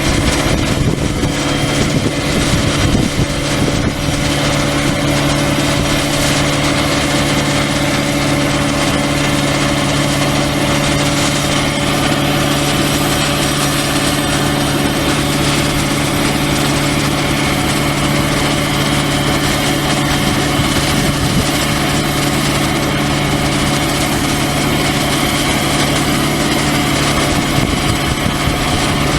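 An engine running steadily at one constant speed, a continuous hum with no revving or changes.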